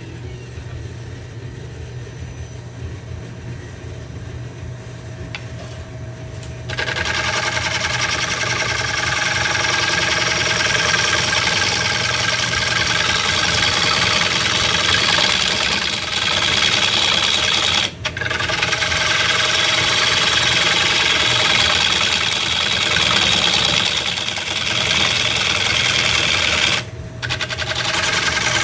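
Wood lathe humming, then from about seven seconds in a gouge cuts into a spinning wooden bowl blank while roughing it out: a loud, steady scraping hiss of the tool shearing wood. The hiss drops out briefly twice, once near the middle and once near the end, where the tool comes off the wood.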